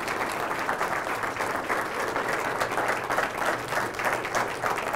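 Audience applauding steadily: a roomful of people clapping after an award presentation.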